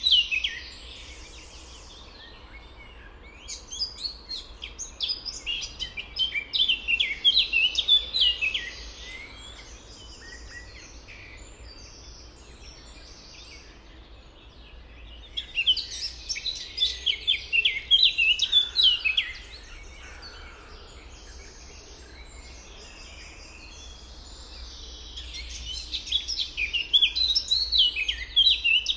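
A songbird singing three long songs of rapid, high notes, roughly ten seconds apart, over a faint steady low rumble.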